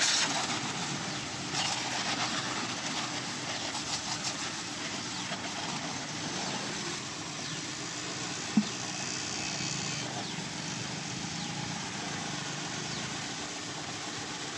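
Water spraying onto a motorcycle during a wash, a steady hiss, with one sharp click about eight and a half seconds in.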